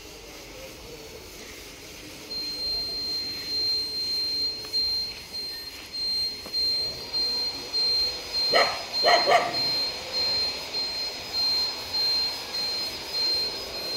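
A dog barks a few times in quick succession about halfway through. Under the barks, a high electronic beep pulses on and off steadily from about two seconds in.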